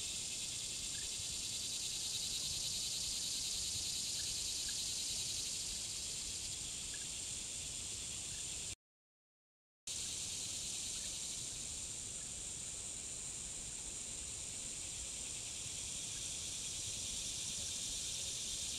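Steady high-pitched drone of a summer insect chorus, with a few faint short chirps. It cuts out completely for about a second near the middle, then resumes.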